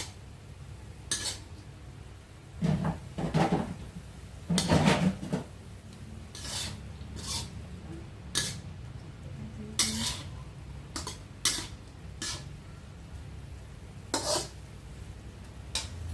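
A cooking utensil clattering and scraping against a pan while the stir-fried bean sprouts are tossed, in irregular bursts that are loudest about three to five seconds in.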